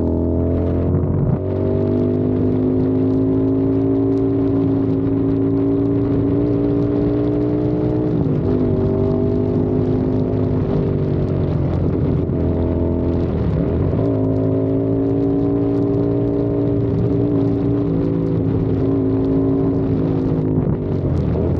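CFMOTO 450SR parallel-twin engine and exhaust running under way at steady revs. The revs dip and pick up again briefly about a third of the way in and again past halfway, then fall away near the end, with wind buffeting the microphone underneath.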